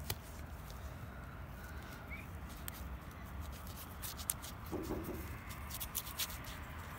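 Knife blade cutting and scraping deer hide away from the skull at the antler base: faint, irregular small clicks and ticks, more frequent in the second half, over a low steady rumble.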